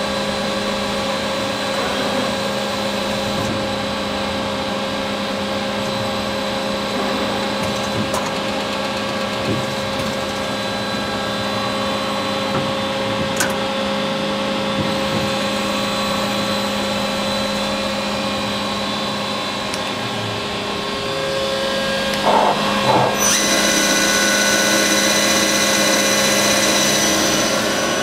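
1999 Star SA-12 CNC Swiss-type lathe with a spindle running at 2000 rpm, making a steady machine hum and whine. About 22 seconds in the sound grows louder and a higher whine joins in.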